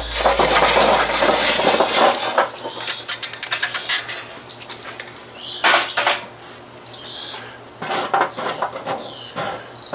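Lit charcoal briquettes tumbling out of a metal chimney starter onto a steel table in a clattering rush for about two seconds, then a quick run of clinks and later scraping as the coals are pushed into a line with a metal poker. Birds chirp now and then in the background.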